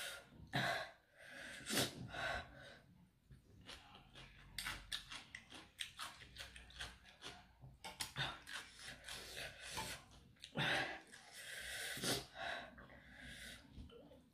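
Close-up eating sounds: wet chewing and mouth clicks on spicy cucumber salad with octopus, broken by several breathy sniffs and hissing breaths of someone eating very hot food.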